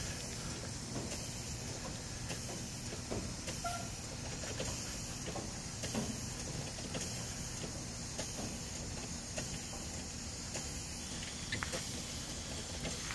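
Steady low hum and hiss from an Amtrak Keystone passenger train standing at a station platform, with a few faint scattered clicks and knocks.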